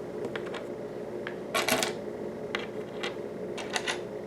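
Small plastic Lego pieces clicking and clattering as they are handled on a tabletop: a scattered series of sharp clicks, with a louder cluster a little before the middle.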